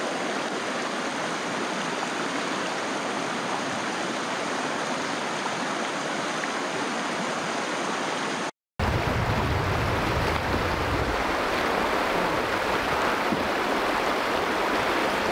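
Shallow river water rushing over a rocky riffle: a steady, even hiss. It cuts out for a moment about eight and a half seconds in and comes back with a deeper rumble underneath.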